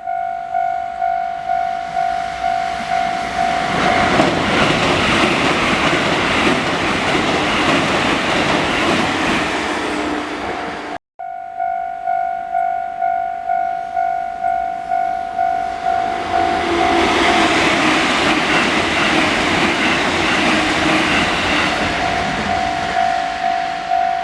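Japanese level-crossing warning bell ringing in a steady repeating chime, about one and a half strikes a second, while a train runs past over the crossing for several seconds with rolling wheel noise. After an abrupt cut the bell rings again and a second train passes.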